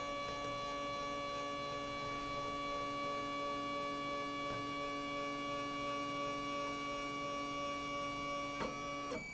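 Stepper motors of a homebuilt plywood repstrap 3D printer whining steadily at one pitch as the axes move. There is a click near the end, and most of the tone cuts off just after.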